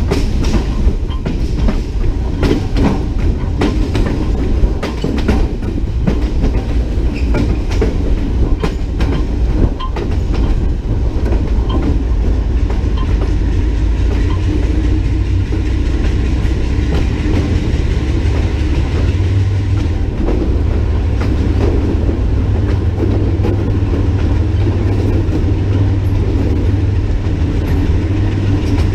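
Diesel locomotive running along the track: wheels clacking over rail joints over a steady low engine drone. The clacking thins out after about ten seconds, leaving mainly the steady drone.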